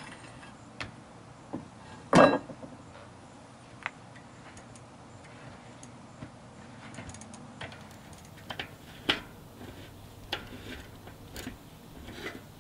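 Metal clicks and knocks from removing a thread-on bicycle freewheel: one loud metallic knock with a short ring about two seconds in, then scattered light clicks in the second half as the loosened freewheel is worked off by hand.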